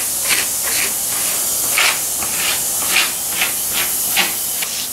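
Hand sanding of the padding on a car roof with a sanding block, shaping it: rapid rasping back-and-forth strokes, about two a second, over a steady hiss.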